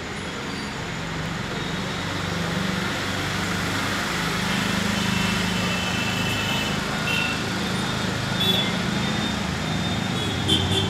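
Twin WDG4 diesel locomotives approaching, their 16-cylinder two-stroke engines making a steady low drone that grows gradually louder.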